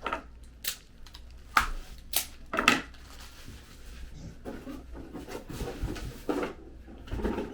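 Handling noise of a cordless cable stapler and its carrying case: several sharp clicks and knocks of hard plastic in the first three seconds, then softer rustling and a couple more knocks near the end.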